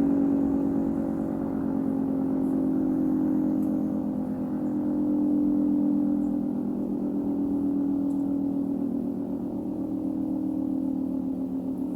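Federal Signal 3T22 dual-tone omnidirectional siren sounding a low, steady chord of two tones with overtones. Its loudness swells and fades every few seconds.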